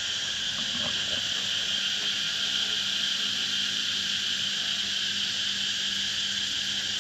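Steady chorus of insects: a continuous high-pitched drone that does not change.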